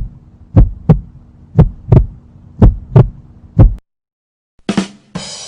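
Heartbeat sound effect: paired lub-dub thumps about once a second over a steady low hum, stopping about two-thirds of the way through. Near the end a short hit is followed by the start of a hissing swoosh.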